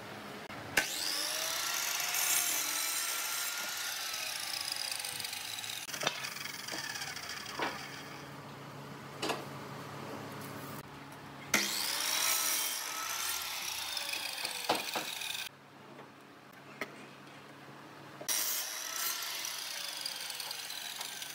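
Sliding compound miter saw started three times, its blade whining up to speed and cutting wooden boards, then winding down with a falling pitch. Sharp knocks of boards being handled come between the cuts.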